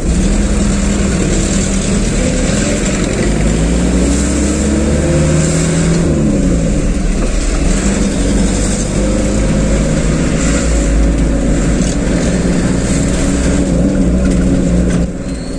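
A delivery truck's engine heard from inside the cab while driving in traffic, over steady road noise. Its pitch climbs, falls back about six seconds in, then climbs again, and the sound gets quieter near the end.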